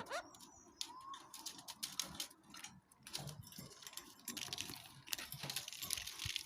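Kakariki parakeet's soft chatter: a short rising chirp at the start, a brief whistled note about a second in, and many rapid small clicks that thicken in the second half.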